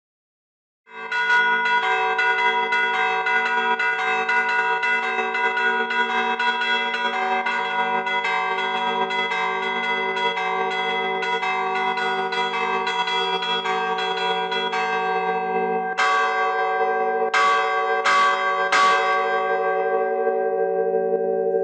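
Several church bells in a tower rung by hand, starting about a second in with a fast, even run of strikes that ring over one another. Near the end the run gives way to four separate heavier strikes while the bells keep ringing.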